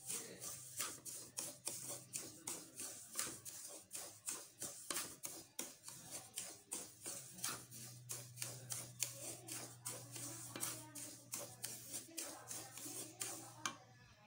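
Wooden spatula stirring and scraping semolina around a metal kadai as it roasts in a little oil, a dry rasping stroke about three times a second.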